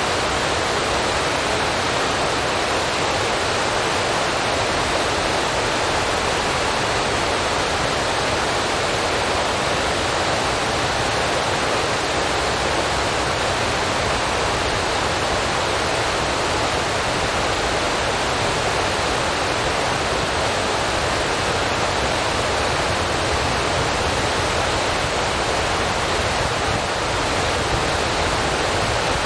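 Steady, even rushing hiss, like rushing water or static, holding at one level with no change.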